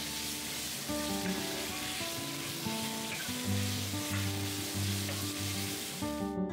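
Floured beef slices sizzling steadily as they fry in oil in a nonstick pan, stirred with a wooden spatula. The sizzle cuts off suddenly near the end.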